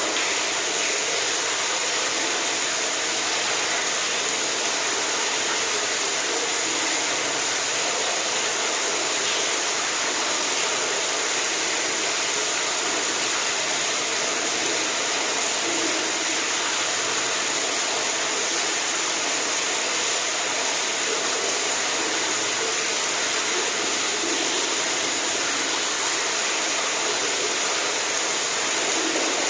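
Steady rushing water, an even hiss with no breaks or changes.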